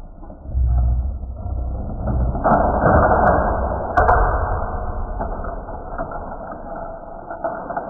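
Plastic mechanism of a Hot Wheels Shark Escape playset ratcheting and rattling as it is worked by hand, with one sharp click about four seconds in.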